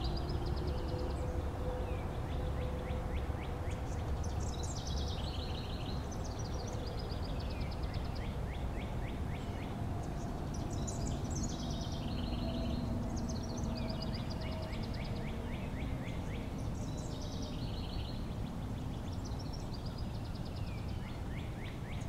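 Northern cardinal singing: phrases of rapidly repeated down-slurred whistles, recurring every few seconds. Under it runs a steady low rumble.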